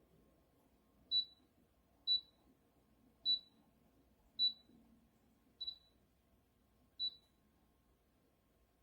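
Six short high-pitched electronic beeps, roughly a second apart, typical of the touch buttons on a cool-mist humidifier's control panel being pressed.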